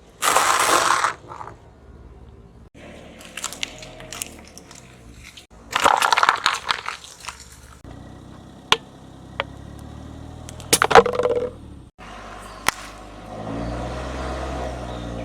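Things crunching and cracking as a car's tyre rolls over and crushes them, in three loud bursts with a few sharp single cracks between. The car's engine hums low underneath and grows louder near the end.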